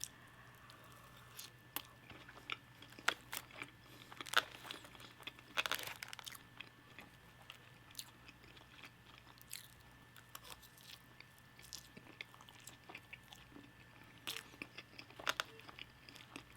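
Someone eating close to the microphone: chewing with irregular crunchy bites and mouth clicks, a second or several apart, the loudest about four to six seconds in.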